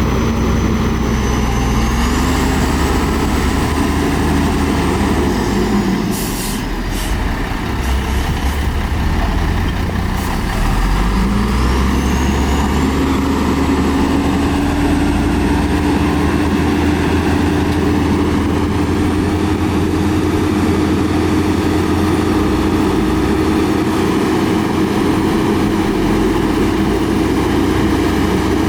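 Heavy diesel earthmoving machinery running steadily, the engine speeding up twice, with a few brief hisses near a quarter of the way in.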